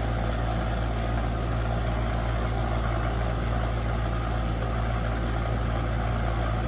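Steady low machine hum, like an engine or motor running at idle, holding an even level throughout.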